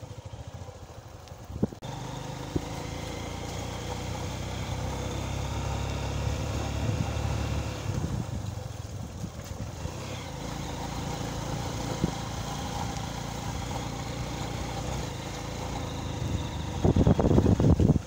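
Motorcycle engine running under way on a rough dirt road: a steady low rumble with a few knocks, growing louder and rougher near the end.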